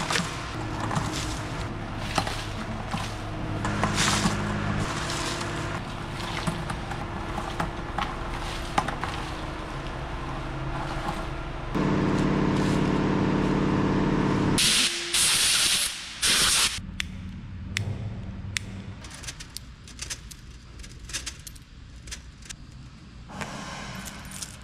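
Coins and loose trash rattling and clinking on a wire-mesh sifting screen as gloved hands work through debris, over a steady machine hum. About halfway a much louder hum comes in for about three seconds, then gives way to two loud hissing blasts.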